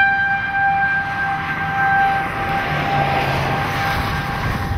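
Outdoor tornado warning siren holding one steady pitch that swells and fades, with a rushing noise rising and falling around the middle.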